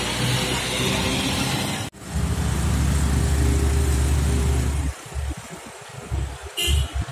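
Road traffic: a flatbed semi-trailer truck rolling close past with a steady low rumble. After a cut, trucks and motor scooters approach with engine rumble that thins and breaks up about five seconds in. A brief high chirp comes near the end.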